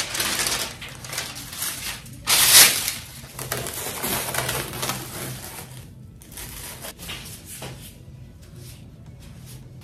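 Baking paper crinkling as it is laid into a foil-lined tray, and plastic cling film crackling as it is peeled off a bowl of risen dough. The loudest crackle comes about two and a half seconds in, and the rustling grows fainter in the second half.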